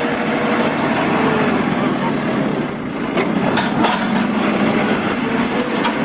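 JCB backhoe loader's diesel engine running as the digging arm works, a steady, dense machine noise with a few knocks about halfway through.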